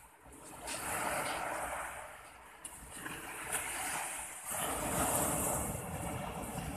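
Sea waves breaking and washing up a sandy beach, the surf swelling twice.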